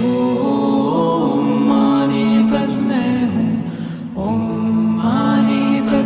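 A Kundalini Yoga mantra chanted in long held notes along with recorded music, the pitch stepping slowly between notes, with a brief dip about four seconds in.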